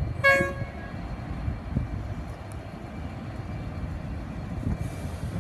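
Diesel freight train led by NR class diesel-electric locomotives rumbling as it moves off and comes closer. A short, high-pitched horn toot sounds just after the start.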